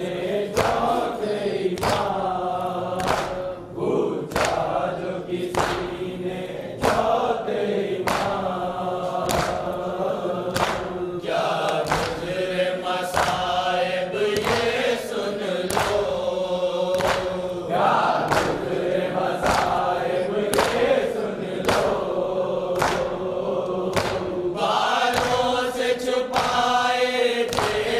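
A group of men chanting a noha in unison behind a lead reciter, with rhythmic chest-beating (matam) slaps about one and a half times a second.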